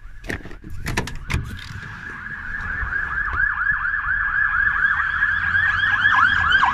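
A siren yelping: a fast rising-and-falling wail, about five cycles a second, that grows steadily louder from about two seconds in. A few sharp knocks sound in the first second and a half.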